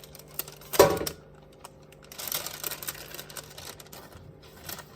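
A drinking glass pressing cookie dough balls flat on a baking sheet: irregular light clicks and taps of the glass and tray, with one louder short sound about a second in.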